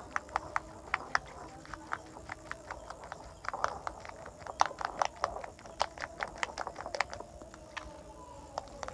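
A spoon clinking against a ceramic bowl while beating an egg mixture: quick, irregular clinks, several a second, thickest around the middle.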